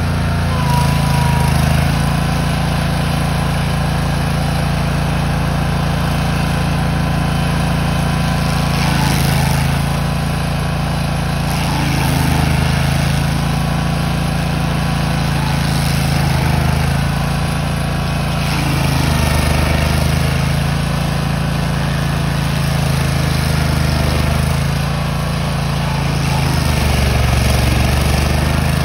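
Engine of a tracked stump grinder running at full throttle while its cutter wheel grinds into a stump. The note swells and eases every few seconds as the load changes.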